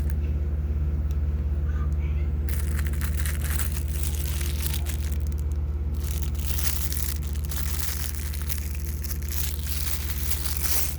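Knife packaging being handled and opened: plastic and cardboard crinkling and crackling in two long stretches, starting about two and a half seconds in, over a steady low hum.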